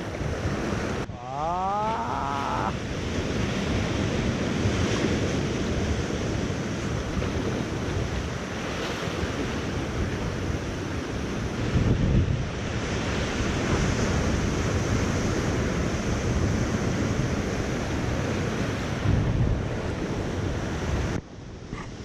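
Sea surf washing on shore rocks, a steady rush with swells rising about 12 seconds in and again near 19 seconds, with wind buffeting the microphone. About a second in, a brief rising whistle-like sound.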